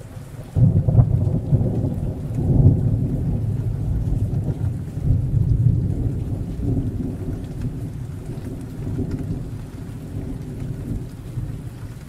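Thunderstorm: a clap of thunder breaks about half a second in and rolls on as a deep rumble that swells again shortly after, then slowly fades, with rain falling throughout.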